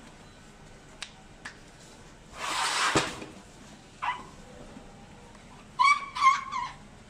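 Asian elephants squeaking: a short high call about four seconds in, then three quick high squeaks near the end, the loudest sounds. A loud breathy blow of air comes a little before the halfway mark.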